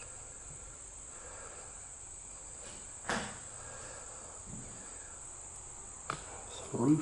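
Steady, high-pitched chorus of crickets or other insects coming in from outside. A couple of soft knocks fall about three and six seconds in, with a louder thump near the end.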